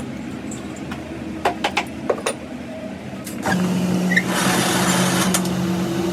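A workshop machine running with a steady hum. A few sharp metallic clicks come about halfway through, then the machine gets louder with a hiss from a little past halfway.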